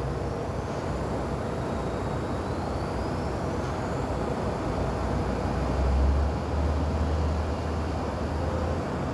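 New York City subway train running: a steady rumbling noise with a faint whine rising in pitch about two to four seconds in, and a low hum that swells about six seconds in.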